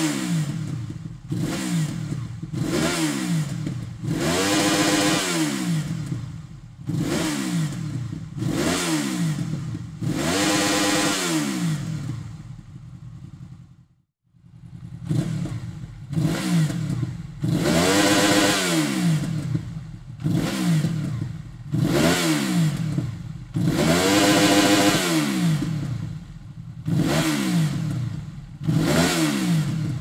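Honda VFR800X Crossrunner's V4 engine revved in quick repeated throttle blips, each rising sharply and falling back toward idle, through a Dominator ST slip-on silencer. About halfway through the sound drops out briefly, and the blips resume through a Dominator HP1 silencer.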